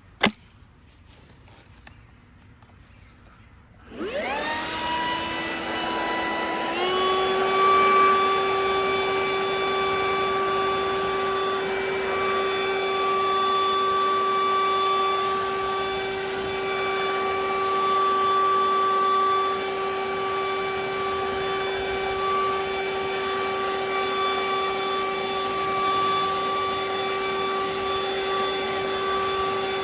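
Makita XGT 40V brushless cordless leaf blower spinning up about four seconds in with a rising whine, stepping up to a higher speed a few seconds later, then running steadily with a loud, high fan whine. A single click comes just at the start.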